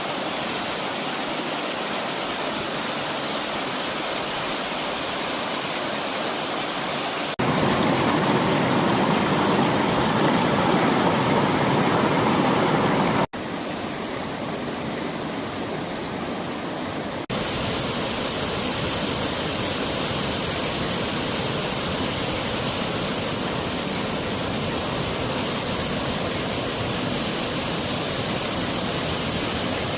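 Steady rushing of a mountain valley stream's water. Its level and tone change abruptly three times, about 7, 13 and 17 seconds in, and it is loudest between 7 and 13 seconds.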